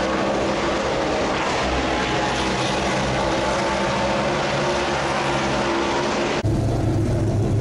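Steady, loud din of engines and machinery around a race-car garage area. About six and a half seconds in, it cuts abruptly to a deeper, steady hum of car engines idling.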